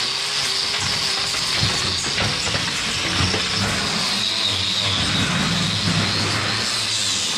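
Angle grinder with a hoof-trimming disc running against a cow's hoof, shaving the horn; its high whine dips and rises as the load on the disc changes.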